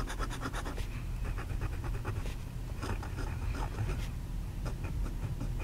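A vintage Howard fountain pen's gold 14k nib scratching across paper. In the first second it makes quick back-and-forth strokes, about ten a second, to fill a block, then separate strokes follow as it writes a zigzag and a row of loops.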